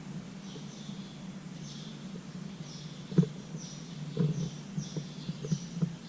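High chirps from a small animal, repeating about once or twice a second over a steady low hum. Several light knocks come in the second half, the sharpest about three seconds in.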